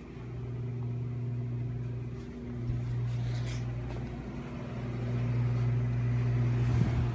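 A steady low machine hum, dipping briefly at the start and about two and a half seconds in, with a few faint clicks near the end.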